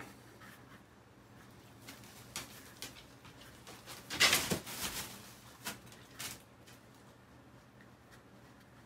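Quiet handling of an SKF bearing in its mounting bracket, a driveshaft support part, as it is turned in the hands and checked for roughness. There are a few small clicks and a brief rushing noise about four seconds in, and the bearing turns without scratching.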